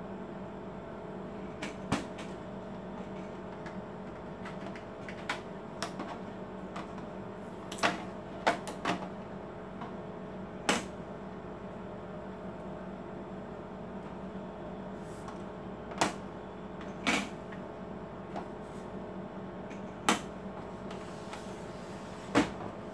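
Sharp plastic clicks and knocks, about nine spread over the stretch, from an Epson L4160 ink-tank printer's parts being handled: its rear paper support raised and its scanner lid reached for. A steady low hum runs underneath.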